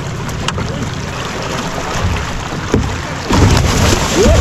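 Wind rumbling steadily on the microphone, then about three seconds in a loud rush of splashing as a large hooked valentón catfish thrashes at the side of the boat while it is being gaffed.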